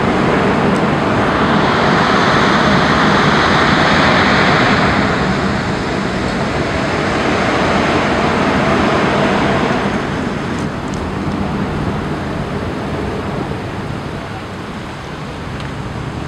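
Water rushing and churning in a canal lock chamber as it fills. It is a steady rushing noise that swells over the first few seconds and eases off after about ten seconds.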